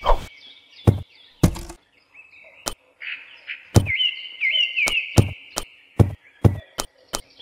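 About a dozen sharp knocks or thuds at irregular intervals, coming faster in the second half, over a run of repeated high chirping calls.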